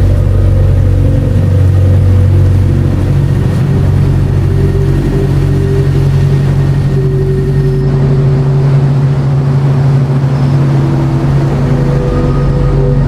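A car engine and road noise while driving, running steadily with a low hum whose pitch shifts slightly a couple of times.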